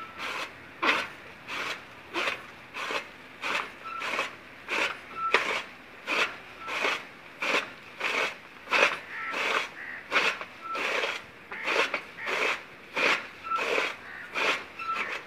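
Hand-cranked toka chaff cutter chopping green sorghum fodder: a steady rhythm of crunching swishes, about three every two seconds, each one the flywheel blade slicing through the stalks. A brief faint squeak comes on some strokes.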